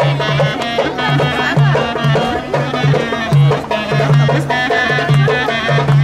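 Live Balkan folk wedding band music: a clarinet plays a fast, ornamented melody over a steady, repeating low bass beat.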